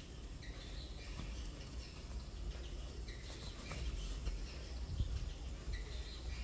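Faint short high chirps at intervals over a low steady rumble.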